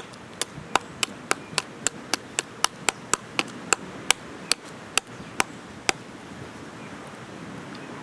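A knife chopping at a coconut to crack it open: about eighteen sharp knocks, three or four a second, slowing a little and stopping about six seconds in.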